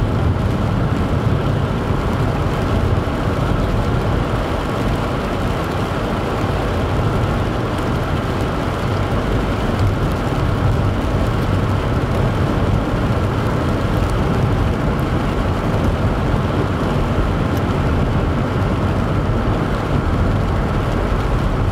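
Steady road noise heard from inside a moving car: tyres running on wet pavement under the hum of the engine, low-pitched and unchanging.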